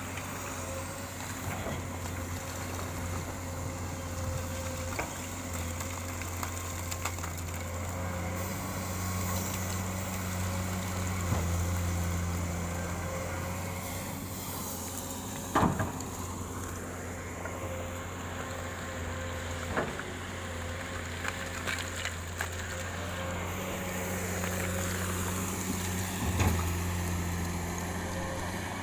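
Komatsu PC200-8 excavator's diesel engine running steadily under work, with a low hum and a steady whine, broken by about five sharp knocks, the loudest in the middle and near the end, as the machine works with the coal.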